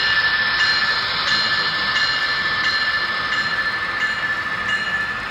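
Sound-equipped MTH HO-scale ES44AC model diesel locomotives running, their onboard speakers playing a steady diesel engine sound heard mostly as a whine. A faint tick comes about every two thirds of a second.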